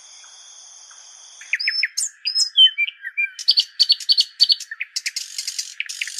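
Birds chirping and trilling, several calls overlapping in quick, repeated high chirps: a morning birdsong sound effect. A faint steady high-pitched tone comes before the birds start, about a second and a half in.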